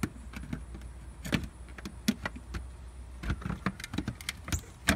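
Plastic doggie-door frame knocking and clicking against the door as it is pushed and worked into the cut opening: a string of irregular taps and rattles, the loudest near the end, over a low steady rumble that fades about three seconds in.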